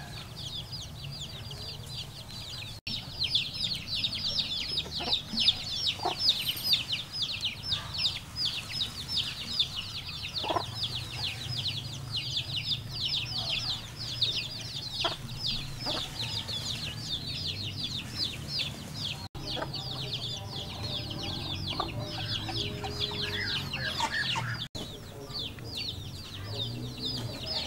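A brood of chicks peeping continuously, a rapid overlapping stream of high, falling peeps, with a hen's lower clucks now and then.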